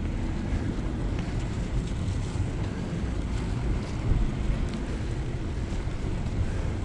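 Wind rushing over a GoPro's microphone on a moving bicycle: a steady low rumble.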